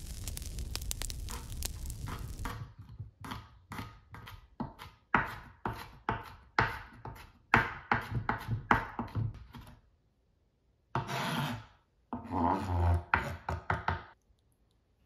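Food sizzling, cut off after about two and a half seconds by a knife chopping on a cutting board: a run of uneven knocks, two or three a second, then two longer rubbing strokes near the end.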